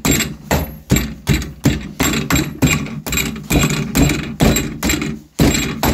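Wooden mallet striking a 3D-printed TPU RC car arm clamped in a steel vise: fast, even blows about three a second, with a short pause about five seconds in.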